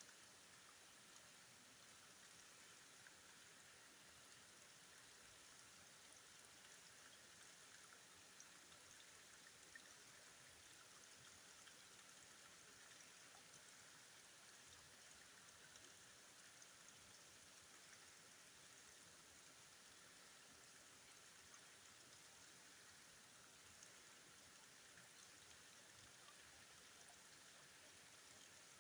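Faint, steady hiss of flowing river water, with a few light ticks scattered through it.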